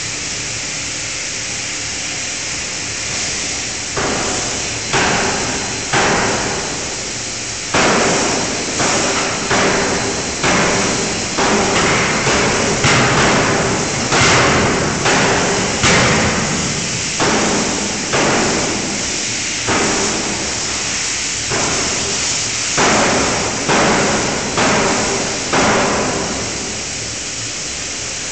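5-tonne fully hydraulic closed-die forging hammer striking a red-hot workpiece in the die: after a few seconds of steady hiss, a long run of heavy blows, one to two a second, that stops shortly before the end.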